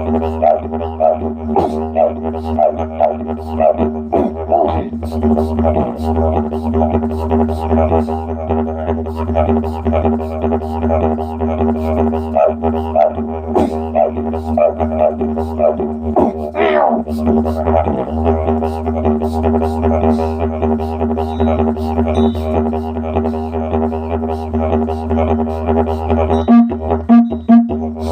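Didgeridoo played as a continuous low drone, its upper overtones pulsing in a fast rhythmic pattern shaped by the mouth. Near the end the drone breaks up into a few short stabbed pulses.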